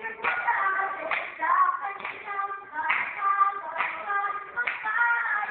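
A group of young people chanting a cheer in song, with hand claps keeping a steady beat of about one clap a second.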